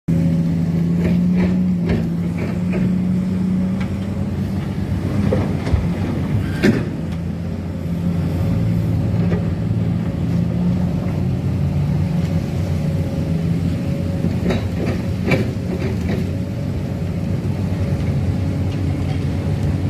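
Heavy diesel engine drone of a Komatsu PC300 hydraulic excavator as it loads coal into a dump truck. The drone shifts in pitch a few times as the load changes. Scattered sharp knocks of coal lumps and the steel bucket sound over it.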